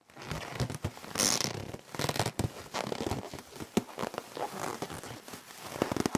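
Irregular crackling and tearing noise, dense with sharp clicks and one brighter hissing burst a little over a second in, cutting off suddenly at the end.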